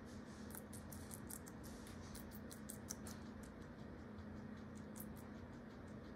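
Guinea pig chewing: a run of quick, crisp crunches over the first three seconds and a couple more about five seconds in, over a faint steady hum.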